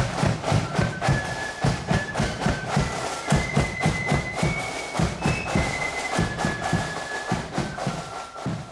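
Marching band playing a tune: a high, stepping wind melody over a steady, regular marching drumbeat, fading away at the very end.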